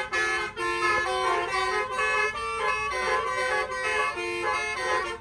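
Telolet basuri multi-tone horn playing a quick tune, its notes changing every fraction of a second with several tones sounding together.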